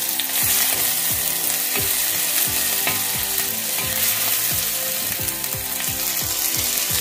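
Grated ginger and whole spices sizzling in hot oil in a steel karahi, being stirred with a long-handled metal spoon. It is the tempering stage, the ginger being fried to release its aroma.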